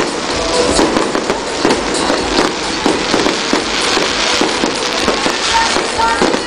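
Fireworks display: a dense, continuous barrage of bangs and crackling explosions, several a second, overlapping one another.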